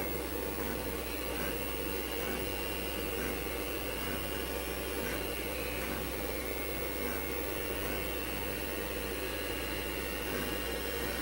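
Steady whir of a vintage IBM PC and its expansion unit running with the cover off: power-supply fans and spinning hard drives, with a constant low hum.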